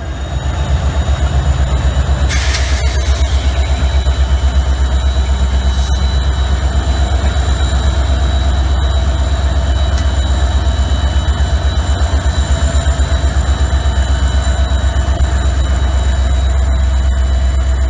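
Norfolk Southern GE C40-8 (Dash 8-40C) No. 8707 and a second diesel unit passing close by. The engines run loud with a fast, even low throb, and a steady high whine sits above it; the unit has a major traction motor failure. A short hiss comes about two and a half seconds in.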